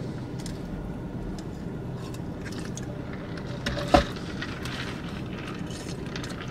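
Steady low hum inside a car cabin, with scattered small clicks and rustles of food wrappers and cups being handled, and one sharp click about four seconds in.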